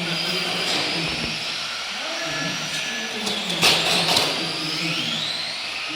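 Electric motors and gear drive of radio-controlled Tamiya TT-01E trucks whining, the whine rising in pitch as they accelerate, over a steady running hiss. A few sharp knocks come a little past the middle.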